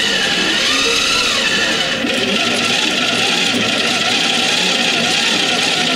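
Gear train of a ship's mechanical latitude/longitude calculator whirring as its gear wheels are spun by hand, the pitch rising and falling with the speed of turning.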